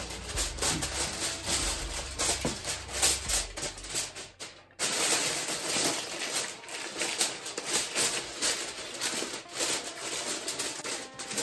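Aluminium foil crinkling and crackling as it is pressed and crimped down over the rim of a metal roasting pan, breaking off briefly a little under five seconds in.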